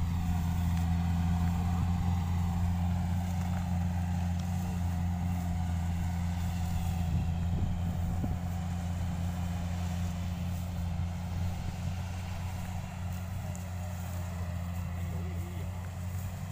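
A farm machine's engine running at a steady speed: a deep, even hum that slowly fades.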